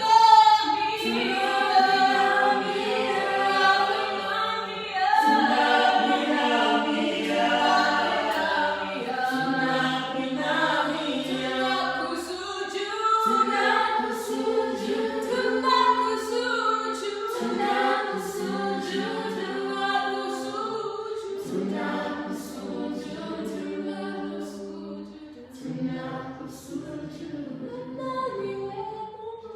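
Church praise team singing a worship song together, several voices held in long notes, growing quieter toward the end.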